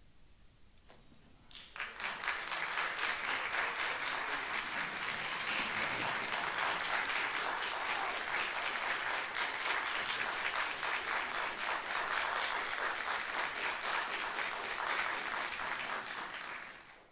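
Audience applauding: the clapping starts about two seconds in, holds steady, and dies away at the very end.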